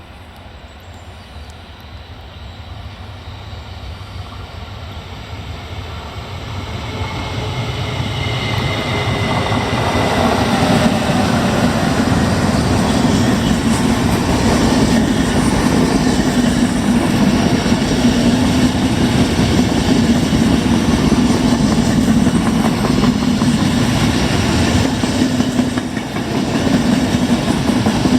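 Train coming into hearing and passing through a station: the noise of wheels on rails grows louder over about ten seconds, then holds loud and steady as the train goes by.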